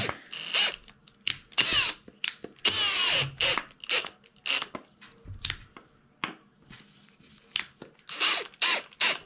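Milwaukee M18 cordless drill run in many short trigger bursts as it works into a cedar board, the motor whining up in pitch within the longer bursts.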